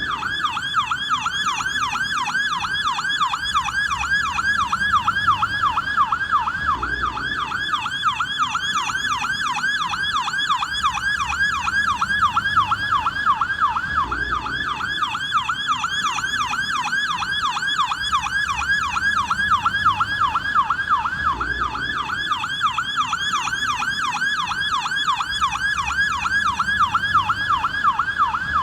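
American police car siren in yelp mode: a fast, steady up-and-down pitch sweep repeating about three times a second without a break.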